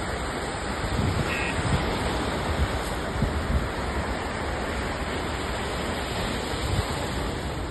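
Sea surf: small waves breaking and washing up the sand in a steady hiss, with a few short low thumps.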